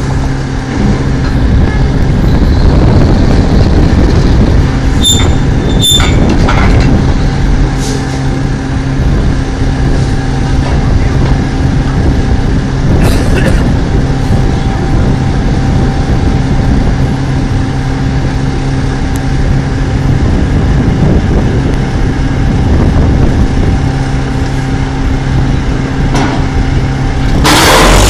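Drilling rig machinery running with a loud, steady drone and a constant hum. Sharp metal clangs ring out twice about 5 and 6 seconds in, with another near 13 seconds. The sound grows louder near the end.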